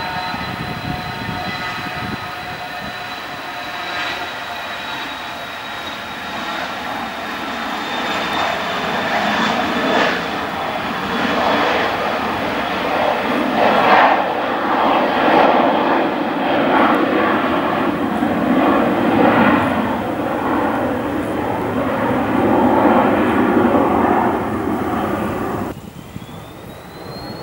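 Cessna Citation Latitude business jet taking off: its twin turbofans at takeoff power give a steady high whine, slowly falling in pitch, over a rushing jet noise that swells as the aircraft lifts off and climbs away. About 26 seconds in the sound cuts off to a quieter scene: a HondaJet on the runway with a fainter engine whine rising in pitch.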